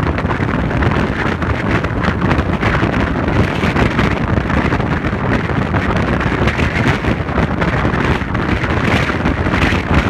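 Wind buffeting the microphone over the road noise of a moving vehicle: a loud, steady rushing with a heavy low rumble.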